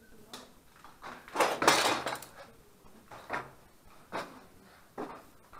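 Footsteps indoors, a little faster than one a second, with a louder, longer rasping noise between about one and two seconds in.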